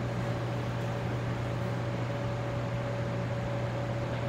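Steady machine hum and hiss with a thin, steady whine above it, unchanging throughout.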